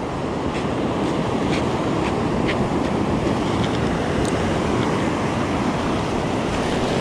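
Ocean surf washing up over the sand, a steady rush, with a few faint ticks over it.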